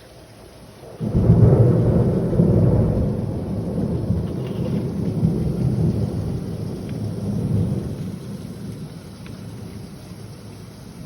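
Thunder cracking suddenly about a second in, then rumbling on and slowly dying away over the next several seconds, over steady heavy rain.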